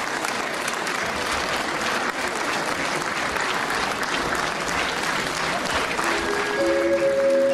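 A large audience applauding, a dense steady clatter of many hands. Near the end, music with a few held notes starts up under the clapping.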